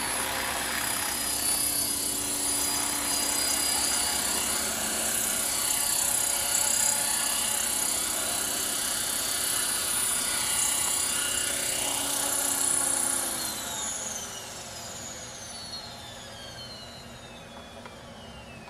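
Thunder Tiger Mini Titan electric RC helicopter running with a steady high-pitched whine of motor and rotor. About 13 seconds in, the power is cut after it has set down, and the whine falls away in pitch as the rotor spools down.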